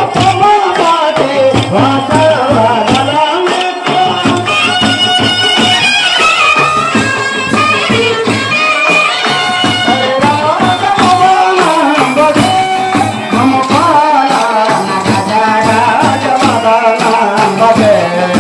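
Telugu folk song for a kolatam stick dance: a singing voice and melody instrument over a steady rhythm, with many sharp clicks of the dancers' wooden kolatam sticks struck together in time.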